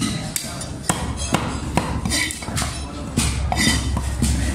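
Heavy cleaver chopping fish on a thick round wooden chopping block, in a steady run of sharp strikes about twice a second.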